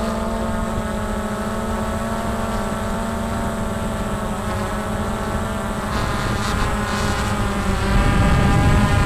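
Multirotor drone's motors and propellers whining steadily in flight, several pitches at once over a rumble, getting a little louder about eight seconds in.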